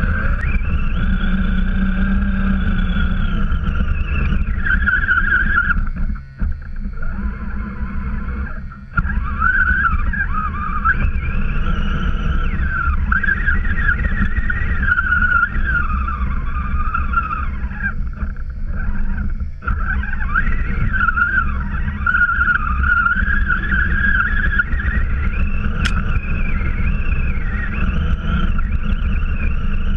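Electric motor and geared drivetrain of an Axial RC truck whining as it drives through deep snow, the pitch rising and falling with the throttle, over a steady low rumble. The motor noise drops away briefly three times, where the throttle is let off.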